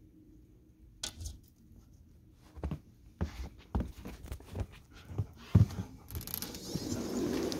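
Dogs and a person moving through a sliding glass door from a snowy deck: scattered knocks and footfalls that grow busier from about three seconds in, then a louder rustling noise near the end.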